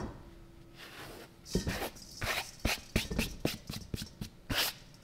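Light, irregular clicks and taps of a kitchen knife on a cutting board while herbs are chopped or gathered up, starting about a second and a half in.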